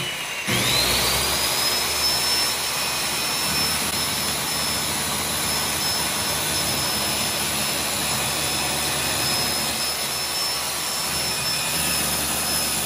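Skil 5150 circular saw cutting through a wood board. About half a second in, the motor spins up with a rising whine, then settles into a steady high whine over the dense noise of the blade in the wood.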